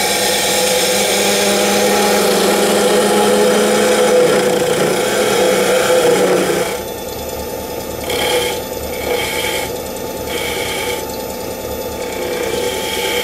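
Spindle gouge cutting a small workpiece spinning on a wood lathe, over the lathe's steady hum. A continuous hissing cut runs for about the first seven seconds, then several short cuts follow with brief pauses between them.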